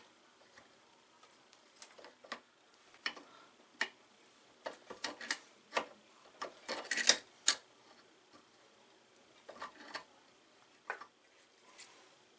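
Adjustable wrench working the seized locking mechanism of a bronze Barient winch handle back and forth, giving irregular small metal clicks and taps. The clicks come in loose clusters, thickest about the middle and again near the end.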